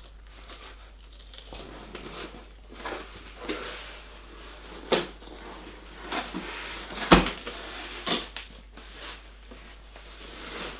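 Parcel packaging being handled and opened: irregular rustling and tearing with scattered sharp knocks, the loudest about seven seconds in.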